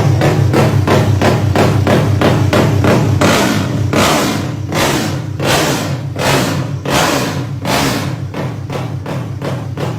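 Honda Wave single-cylinder four-stroke engine, bored out to 250cc with a 62 mm cylinder and dual ignition, running loud with a rapid, lumpy exhaust beat. About three seconds in, the beat turns slower and more uneven and the level drops a little.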